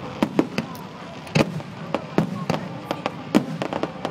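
Aerial firework shells bursting in quick, irregular succession: many sharp bangs, the loudest about a second and a half in and again about three and a half seconds in.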